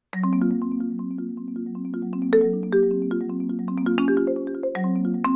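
Yamaha 5.0-octave concert marimba played solo, starting abruptly just after the start. Low rolled notes are held in layered chords, with quick single notes struck higher up and a few louder accented strikes.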